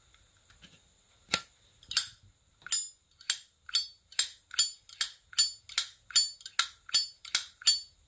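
A 2003 silver-plated Zippo lighter's hinged lid flicked open and snapped shut over and over, sharp metallic clicks with a short high ring, about two a second, starting about a second in. It is a clean, crisp lid sound, called a good one ('âm hay').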